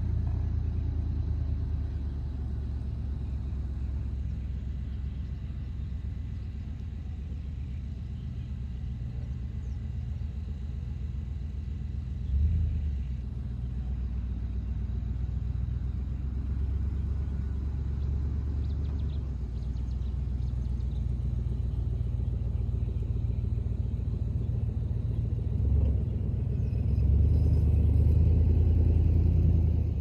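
Wind buffeting the microphone: a low, unpitched rumble that swells in a short gust about twelve seconds in and grows louder again near the end.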